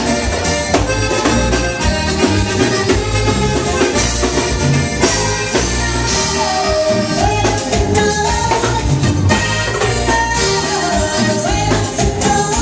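Live band playing Latin music: a woman sings lead over guitar and a drum kit.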